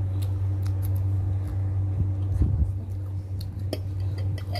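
Scattered small clicks and taps of eating at a plate: fingers and a metal fork working through saucy chicken and noodles on a ceramic plate, with a soft thump about halfway. A steady low hum runs underneath.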